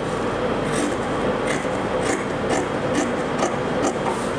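Scissors snipping through fabric along a marked cutting line, a short crisp snip about every half second, over a steady background hum.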